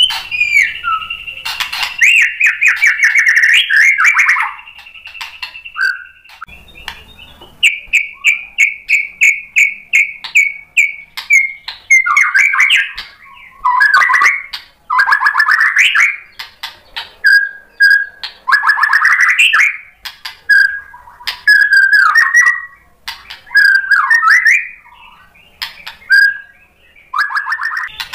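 White-rumped shama singing a long, varied song of clear whistles. It opens with a held high note, moves into a fast run of about a dozen short repeated notes, and then goes on in rich rising and falling warbled phrases.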